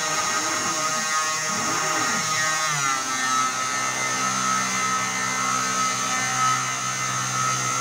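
Ortur Aufero desktop CNC engraver milling into wood: the spindle motor whines steadily while the stepper motors hum in rising and falling pitch as the bit traces a curve, settling into steady tones about three seconds in.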